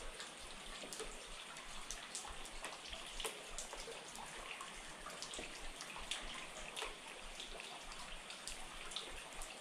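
Steady rain falling, with many small separate drop ticks over an even hiss.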